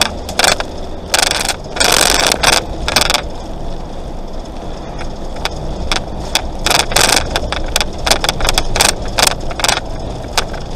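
Plastic dashboard of a motorhome clicking and rattling irregularly while driving, over the steady rumble of the engine and road noise inside the cab.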